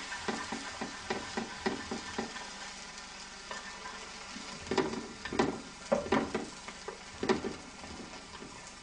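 Beaten egg frying with broccoli in a frying pan, sizzling. Cooking chopsticks stir the food and knock and scrape irregularly against the pan, with the loudest knocks around the middle.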